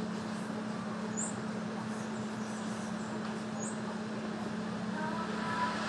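Steady background noise with a constant low hum, and two short, high-pitched chirps about two and a half seconds apart.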